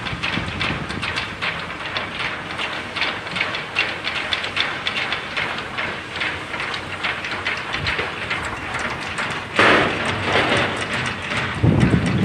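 Shipyard noise: rapid, irregular metallic knocking and clatter over a steady hiss, with a louder rush of noise about ten seconds in and a low rumble near the end.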